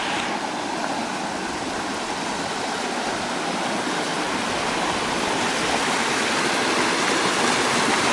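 River water rushing steadily, the river running high, growing slightly louder over the span.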